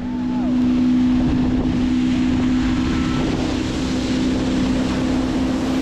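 Boat's outboard motor running at a steady speed, a constant low hum over wind hiss on the microphone.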